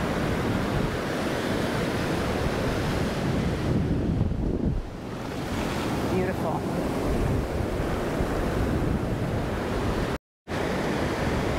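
Ocean surf washing up on the beach, with wind buffeting the microphone. The sound cuts out for a moment near the end.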